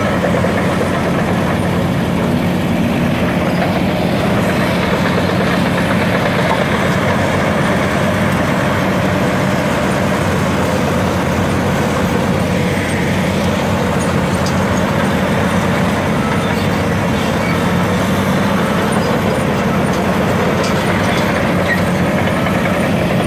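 Diesel engines of a Caterpillar excavator and bulldozer running steadily as they dig and push dirt, a constant low engine hum.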